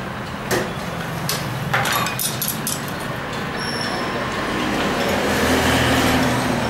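A few sharp metal clinks as engine parts and tools are handled, then a motor vehicle's engine hum in the background that grows louder about five to six seconds in and eases off again.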